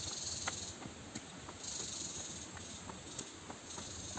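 Outdoor insect chorus: a steady high-pitched hiss that swells and eases every second or so, with a few faint light clicks.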